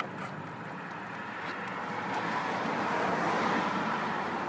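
Road traffic noise: a passing vehicle, swelling to a peak about three seconds in and then fading, with a few faint clicks.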